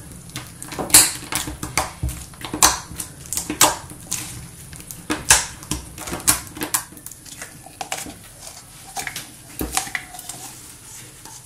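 Irregular crunching and crackling clicks from Doritos tortilla chips being squeezed and kneaded through clear slime.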